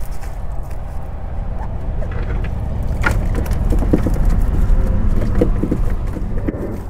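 Cast net hauled up from the water onto a boat deck, water pouring off its mesh. About three seconds in, the net and its catch land on the deck with a scatter of short slaps and knocks, over a steady low rumble.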